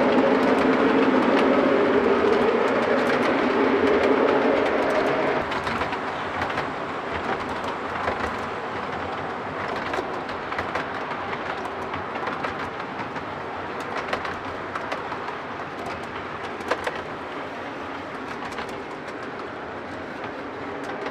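O gauge model train passing: the Lionel diesel locomotive's sound-system engine hum fades away about five seconds in. After that, the auto rack cars keep rolling with a steady rumble and a stream of small clicks from the wheels on the track.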